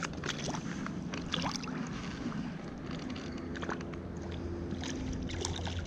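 Outdoor rumble with a scattered series of short clicks and rustles, and a faint steady hum partway through.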